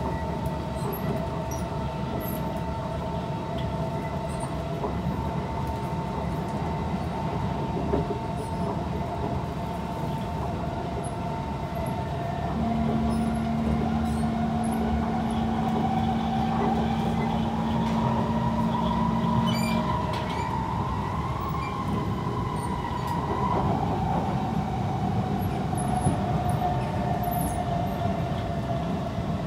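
Interior of a Kawasaki C151 metro train running on elevated track: a steady rumble of wheels on rail under a whine that rises in pitch around midway and eases back down near the end, as the train changes speed.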